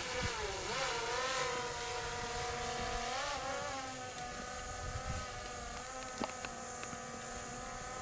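Steady buzzing hum of a small motor, its pitch wavering briefly about a second in and again around three seconds in, with a couple of faint clicks in the second half.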